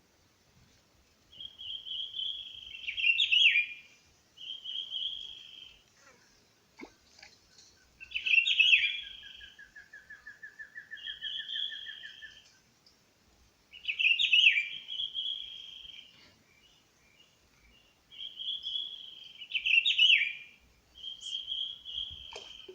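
Wild birds singing: one bird repeats a short, high song phrase every two seconds or so, and a second bird gives a lower, rapid trill lasting about four seconds, starting about a third of the way in.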